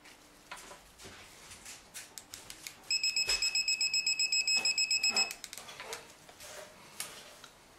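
Electronic torque wrench beeping rapidly, about eight short high beeps a second for about two and a half seconds, starting about three seconds in. This is the alert that it has reached its preset torque on the left-hand-thread oil pump sprocket nut. A few light clicks of the tools come before and after.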